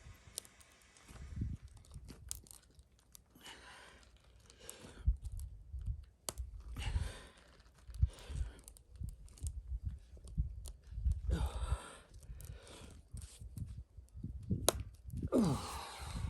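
Hand-work noise from a tire plug repair: irregular clicks and knocks of the insertion tool and plug against the tire, with scraping and rustling in stretches of about a second, as the plug is forced into a puncture through the tire's steel belt.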